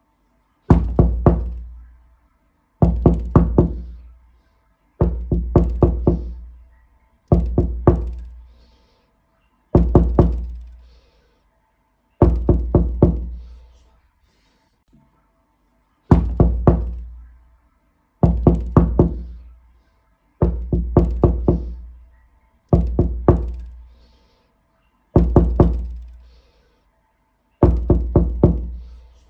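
Knocking on a door in quick bursts of three or four raps, each burst with a low, booming ring. The bursts repeat about every two seconds, twelve in all, with one longer pause near the middle.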